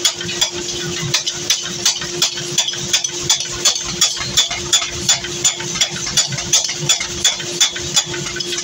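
Mechanical power hammer pounding a red-hot steel cleaver blank, sharp metal-on-metal blows repeating evenly a few times a second over a steady hum from the machine.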